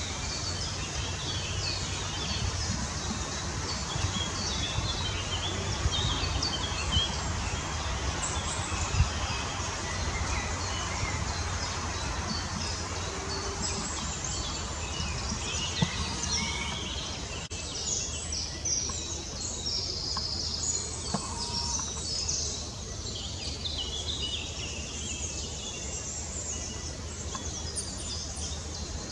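Woodland birds singing and chirping, many short high calls and song phrases overlapping, over a steady low rumble of background noise.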